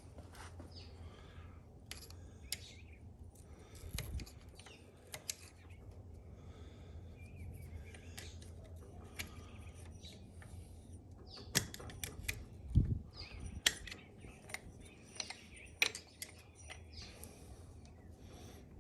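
Irregular metal clicks, taps and short scrapes of a hand tool working at a stubborn ring on a motorcycle rear shock body, with the sharpest clicks in the second half.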